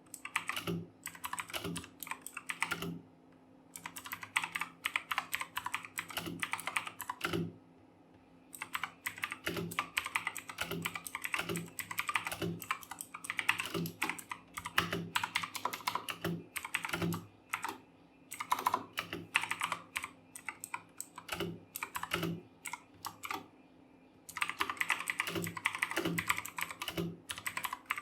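Fast typing on a RedGear Chameleon mechanical keyboard with clicky Kailh Blue switches: rapid runs of sharp clicking keystrokes, broken by a few brief pauses.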